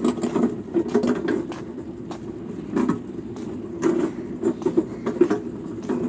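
A motor vehicle engine running steadily, with scattered clicks and knocks over it.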